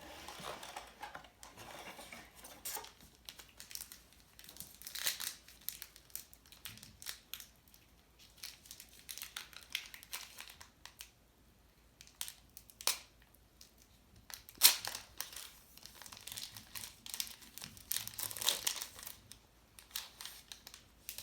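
Baseball card pack wrappers and cards being handled: irregular crinkling and crackling in bursts. There are a few sharp snaps, the loudest about two-thirds of the way in.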